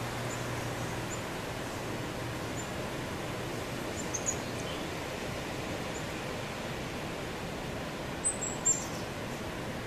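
Steady outdoor hiss with faint, short, high bird chirps scattered through it, a pair of brighter ones about four seconds in and a quick cluster of louder ones near the end.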